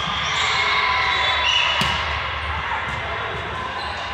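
Echoing gym ambience of players' voices and calls during a volleyball rally, with a short referee's whistle about a second and a half in and a sharp thud of a ball just after it.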